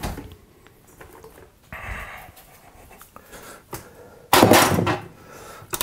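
Dishes handled on a kitchen counter: scattered light clicks and knocks, then a short, loud clatter about four seconds in as bowls are moved and set down.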